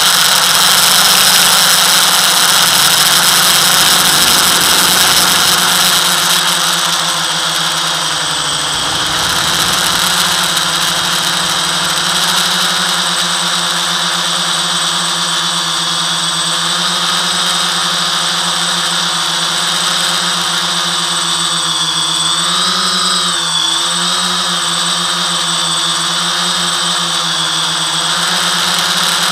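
FPV quadcopter's electric motors and propellers whining steadily in flight, the pitch wobbling briefly up and down with throttle changes about three quarters of the way through.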